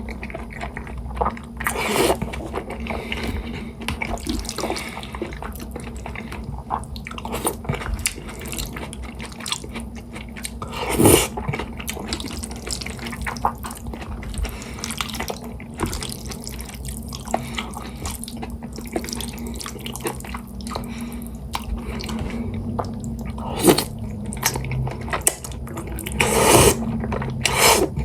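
Close-up wet eating sounds of a person eating sticky jajangmyeon noodles: constant soft chewing and smacking clicks, with a few louder slurps of noodles about 2, 11, 24 and 26 seconds in. A low steady hum runs underneath.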